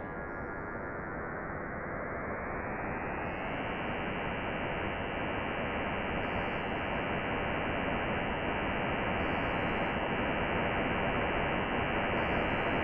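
Electro-acoustic computer music: a dense, even wash of noise with its top cut off around 3 kHz, slowly swelling louder, with faint brief high hiss accents about every three seconds.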